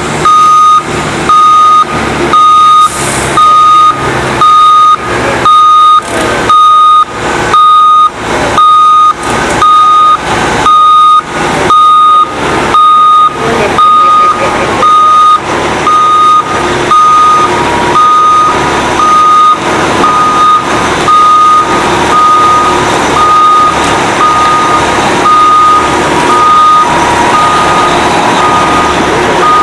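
Forklift's reversing alarm beeping about once a second, one steady high tone, over the forklift's engine running. The engine noise rises about halfway through and fills the gaps between beeps.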